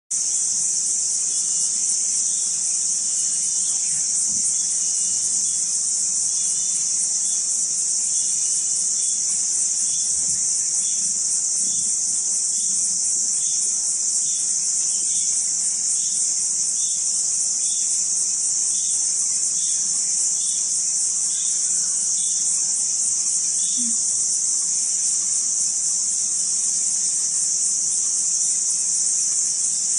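Forest insects keep up a steady, high-pitched chorus, with a fainter short chirp repeating a little faster than once a second through most of it.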